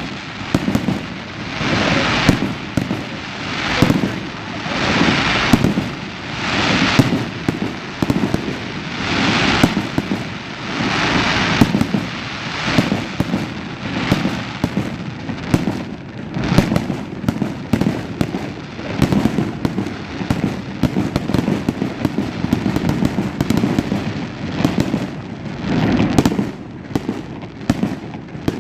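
A fireworks display: aerial shells bursting one after another, about every one to two seconds, with many sharp cracks throughout. In the later part the cracks come thicker and faster, as crackling.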